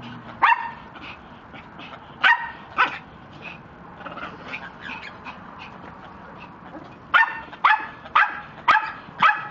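Dog barking in short, sharp barks: a single bark, then two, then a quick run of about five near the end, with fainter yips in between.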